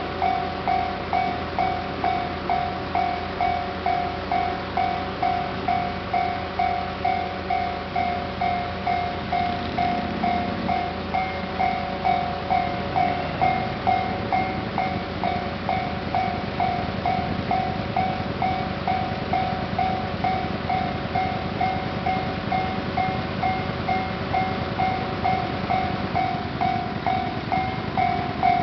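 Japanese railway level-crossing warning bell ringing over and over, about one and a half dings a second. From about ten seconds in, a train runs through with a low rumble under the bell.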